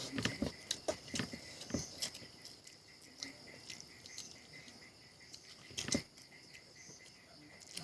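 Wet chewing and mouth smacks of someone eating, in scattered clicks, with one louder smack about six seconds in. Behind them runs a steady, high chirring of insects.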